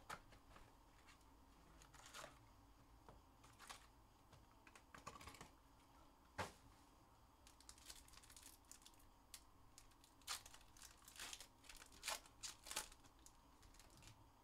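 Faint, scattered crinkles and clicks of foil trading-card packs being handled and pulled open, with a few sharper crackles near the end.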